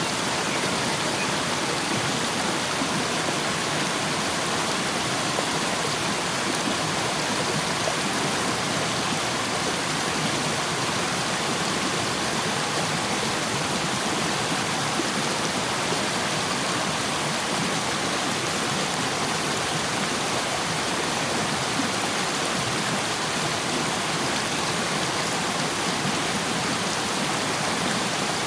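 Small river rushing over rocks, a steady, unbroken water noise.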